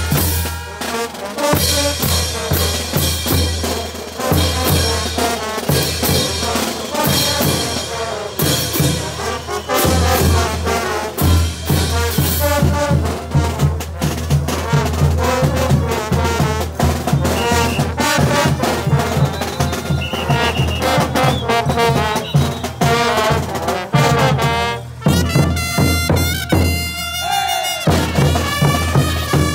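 Bolivian brass band playing caporales music: trumpets and tubas over a steady beat of bass drums, snare drum and crash cymbals.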